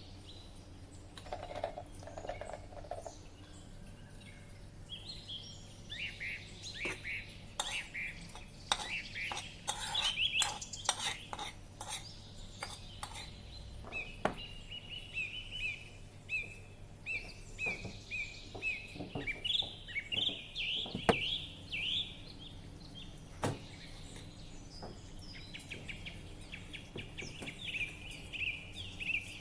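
Utensils and dishes clinking and knocking in irregular bursts during food preparation, with birds chirping repeatedly in the background.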